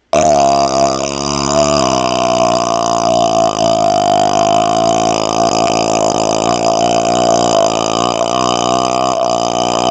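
A man's long, drawn-out belch that starts abruptly and runs on without a break, its pitch wavering and shifting.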